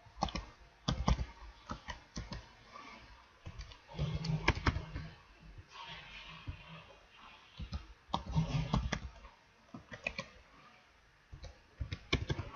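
Computer keyboard keystrokes, clicking in irregular short runs with pauses between them.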